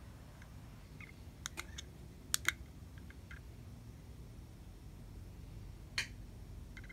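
Sharp plastic clicks of a remote control's buttons being pressed to work a box fan: a few light ones about a second and a half in, a louder pair around two and a half seconds in, and one more about six seconds in.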